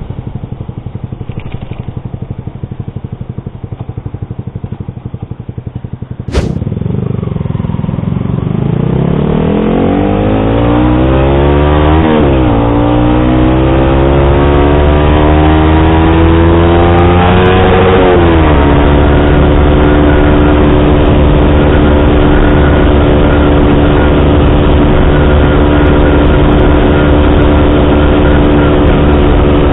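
Yamaha R15 V3's single-cylinder engine through an SC Project exhaust with a dB killer: idling, then a sharp knock about six seconds in. The revs rise as the bike pulls away, with gear changes about halfway through and again a little later, and then it runs at a steady cruise.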